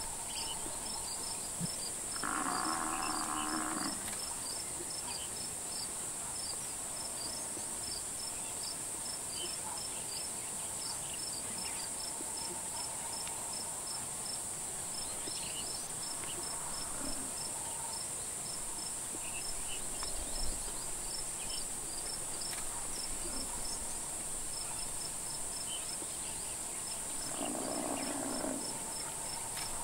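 Steady insect chorus: a continuous high buzz with a cricket chirping a few times a second. Two brief lower sounds come through, about two seconds in and near the end.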